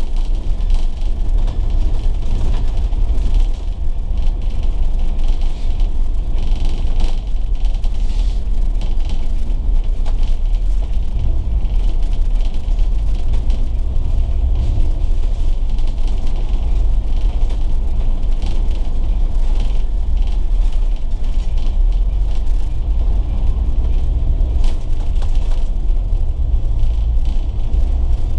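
Volvo B9TL double-decker bus's six-cylinder diesel engine and drivetrain running while the bus is under way, a steady low rumble.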